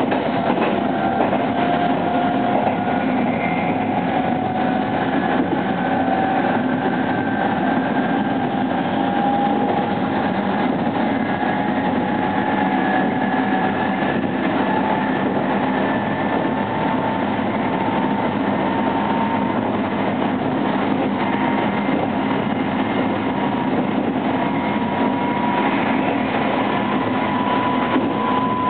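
Meitetsu 3100 series electric train under way, with steady wheel and rail running noise and a traction motor whine that rises slowly in pitch as the train gains speed.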